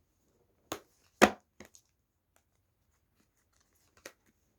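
Tarot cards being handled and put down on a table: a few short sharp taps, the loudest a little over a second in, and one more near the end.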